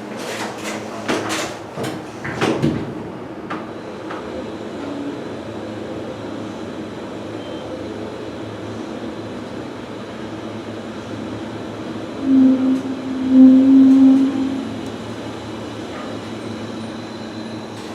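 Elevator doors sliding shut with a few clattering knocks, then the steady hum of the elevator running. A little past the middle a loud low tone sounds for about two and a half seconds.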